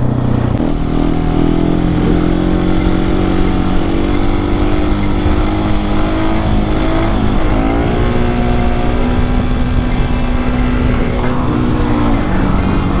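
Husqvarna 701's single-cylinder engine pulling under way, its note stepping down at a gear change about half a second in, climbing again around the middle, and dropping near the end.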